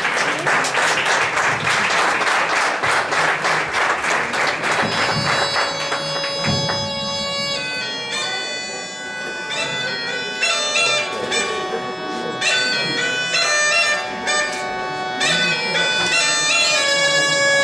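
Bagpipes played by a Belarusian pipers' group: a steady drone with a melody of held notes over it. The pipes come in clearly about five seconds in, after a stretch of rapid, even, noisy beats.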